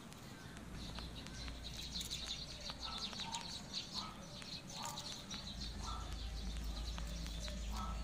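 Birds chirping: a dense chatter of high chirps from about a second in, with short lower calls repeating every second or so, over a faint low rumble.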